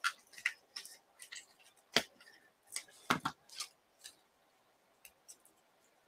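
Hands handling cardstock and paper pieces: a scatter of light clicks and rustles, with sharper taps about two seconds and three seconds in.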